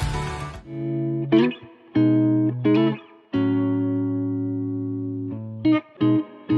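Background music: a guitar playing chords, each struck sharply and left to ring, after a fuller arrangement drops out about half a second in.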